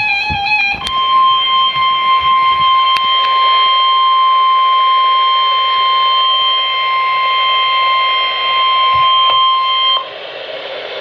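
NOAA Weather Radio warning alarm tone, the single steady 1050 Hz tone sent before a warning. It starts about a second in, right after the last warble of the SAME data header, holds for about nine seconds, then cuts off sharply, leaving radio hiss.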